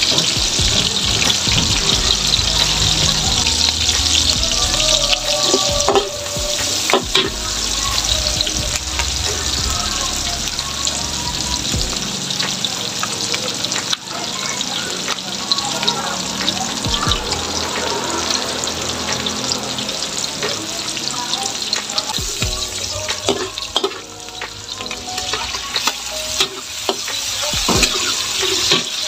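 Garlic and onion sizzling steadily in hot oil in a large metal wok, browning. A metal spatula scrapes and knocks against the pan now and then as it stirs.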